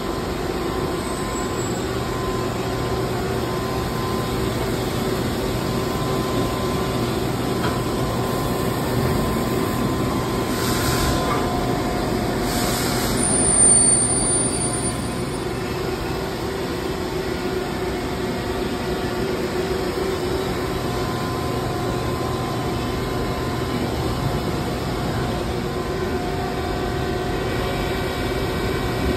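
Star SV-12 CNC Swiss-type screw machine running: a steady mechanical hum with several held tones. About 13 seconds in it swells briefly louder with a thin high-pitched squeal.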